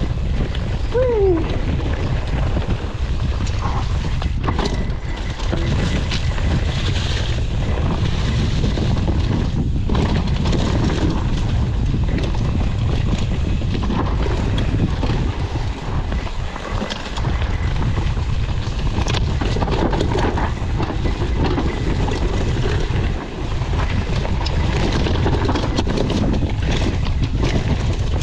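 Wind buffeting the microphone: a loud, steady low rumble. A short falling squeak or call comes about a second in.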